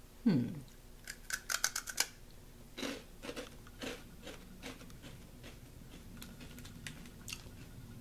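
A short falling "mm" from the eater, then crunchy rice cracker nuggets being bitten into: a quick run of sharp crunches about a second in. After that come softer, scattered crunching chews that thin out.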